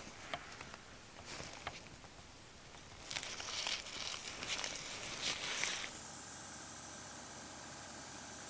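Nylon mesh netting rustling and crinkling as it is wrapped and pulled tight over a metal spoon lure. About six seconds in, a steady hiss of paint spraying starts.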